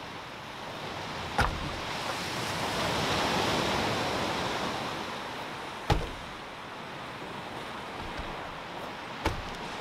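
Small waves washing onto a pebble beach, swelling and then easing off, with three short knocks a few seconds apart, about one and a half, six and nine seconds in.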